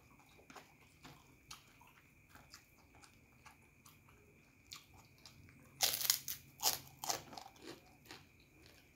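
Close-up eating sounds: soft chewing and mouth clicks, then about six seconds in a run of loud crunches lasting about a second and a half as a piece of krupuk cracker is bitten and chewed.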